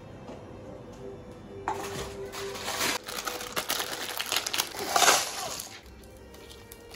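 Plastic instant-noodle packaging crinkling and tearing as it is opened by hand. The crackling starts a couple of seconds in, is loudest shortly before it dies away near the end.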